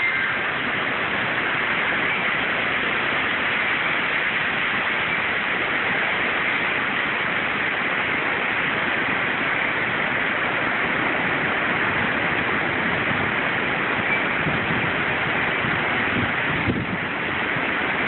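Heavy rain and wind in a severe storm, a steady, even rushing noise with a brief dip near the end.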